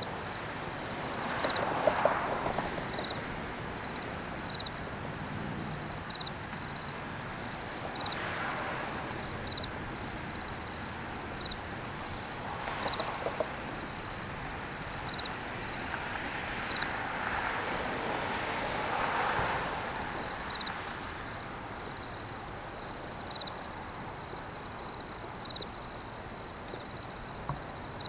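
Outdoor ambience: a steady high-pitched chirping with a soft pulse about every second and a half, and several swells of noise that rise and fade over a couple of seconds.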